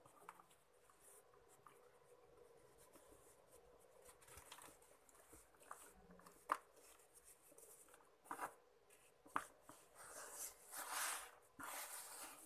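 Soft, damp sand-cement lumps crumbled between the fingers: a faint gritty rustle, with a few sharp cracks in the middle as pieces snap. Near the end comes a louder hissing crumble and slosh as the crumbs are worked in water.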